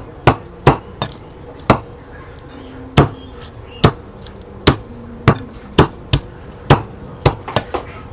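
Cleaver chopping through raw chicken in sharp, separate strikes, about one every half second to second, with a quick run of lighter chops near the end.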